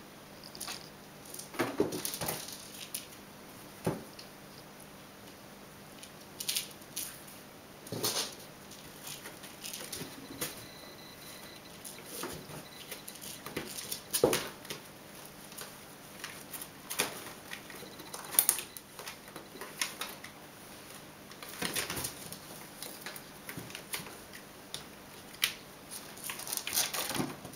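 Ragdoll kittens playing: irregular paw taps, thumps and brief scrabbling on cardboard scratchers and a laminate floor.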